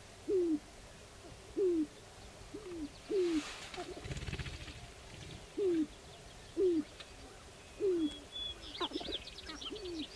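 Male sharp-tailed grouse cooing on a lek: a low, falling hoot repeated about once a second, about eight times. A short rattling burst comes about four seconds in, and short high-pitched calls join near the end.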